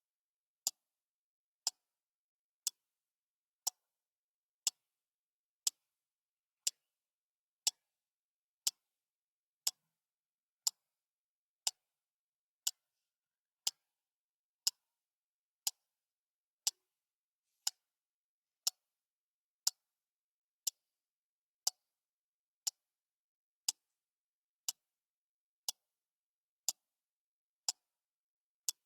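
Clock ticking, one sharp tick a second, every tick alike and steady, with silence between them.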